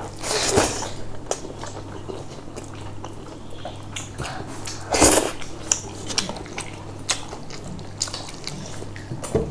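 Close-up eating sounds: wet chewing and lip-smacking clicks, with two louder wet smacks about half a second in and about five seconds in, over a faint steady low hum.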